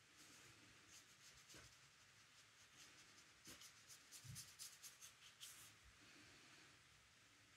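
Faint strokes of a watercolour brush on textured paper, with a quicker run of short strokes in the middle.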